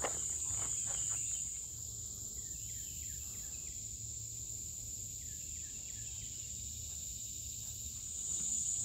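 Steady high-pitched insect chorus, with a few faint short chirps in the middle.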